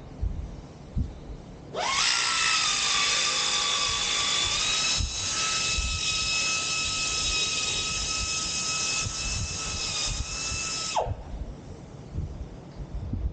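Handheld electric power tool cutting the panel. Its motor spins up with a rising whine about two seconds in, runs at a steady pitch for about nine seconds, then winds down near the end.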